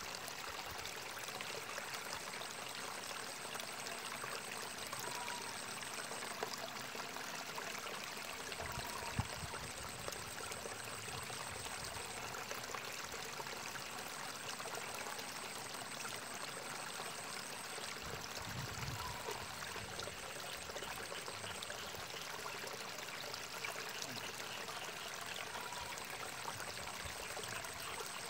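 Steady trickle of water in a small irrigation ditch, an even running hiss, with a thin high tone that stops and starts and a couple of faint knocks.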